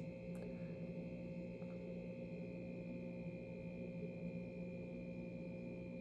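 Room tone: a faint, steady hum with a few unchanging higher tones.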